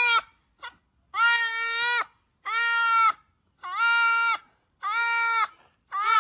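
Goat kid bleating over and over, five long cries about a second apart, each held at an even pitch. It is crying in pain as its fly-strike wound is treated, because the treatment burns.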